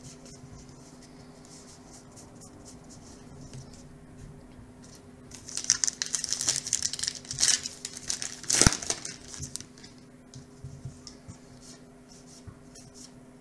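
Soft card handling, then about five seconds in a trading-card pack wrapper is torn open and crinkled loudly for about three and a half seconds, with a sharp snap near the end of the tearing. Softer shuffling of the cards follows.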